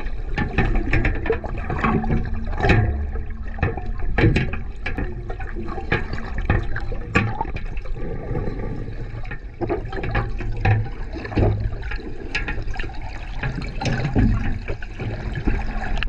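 Muffled underwater sound of water moving around a submerged camera: a low steady rumble and gurgling, with frequent short clicks and knocks.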